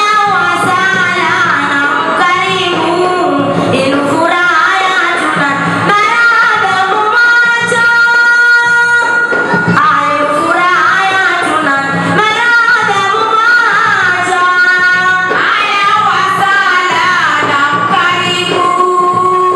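A woman singing solo into a corded microphone, amplified. Her voice winds through ornamented phrases and holds long steady notes, with a long held note about eight seconds in.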